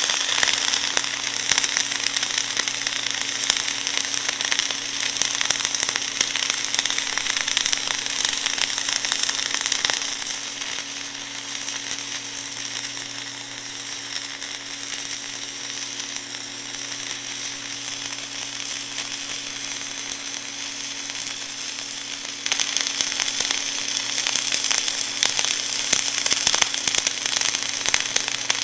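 MIG welding arc burning continuously as a circular weld pass is run around a steel reamer shank. The arc strikes right at the start. It is louder for the first ten seconds and again from about 22 seconds in, over a steady low hum.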